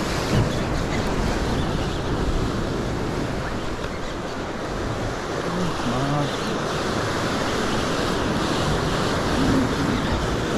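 Ocean surf washing and breaking against rocks, a steady rushing noise, with wind blowing across the microphone.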